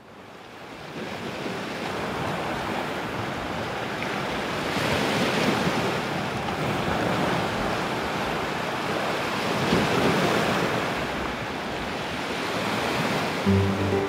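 Sea waves washing in, fading up from silence and swelling twice as waves break, about five and ten seconds in. Acoustic guitar music begins just before the end.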